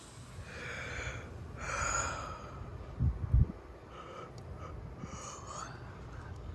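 A person sniffing and breathing hard through a stuffed-up nose, several sniffs in a row. Two short low thumps about three seconds in, over a steady low rumble.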